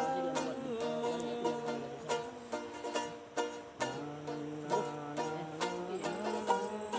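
Music played on a plucked string instrument: a run of picked notes, one after another.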